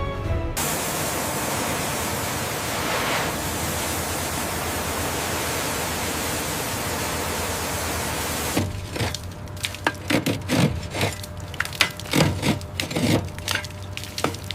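A steady rushing hiss for about eight seconds, which stops suddenly and gives way to a quick, irregular run of sharp knocks and clatters.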